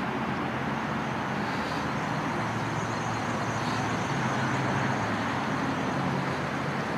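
Steady road traffic noise, an even rushing hum with a faint low engine drone that swells slightly about two-thirds of the way through.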